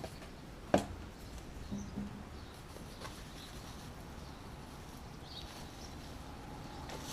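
Quiet outdoor background with a single sharp knock a little under a second in, a few fainter clicks, and faint high bird chirps.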